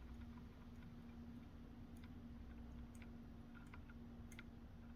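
Near silence with a few faint, scattered clicks of a lock pick working the pins inside a BiLock NG lock, over a faint steady hum.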